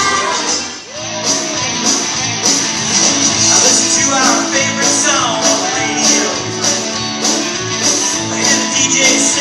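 Recorded rock-style song with a singer, played over loudspeakers in a large hall for a line-dance routine. The music dips briefly about a second in, then picks up again.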